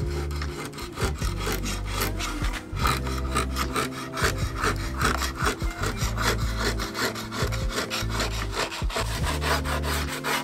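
A steel scraper blade drawn in quick repeated strokes across a wooden board, rasping as it shaves off curled wood shavings.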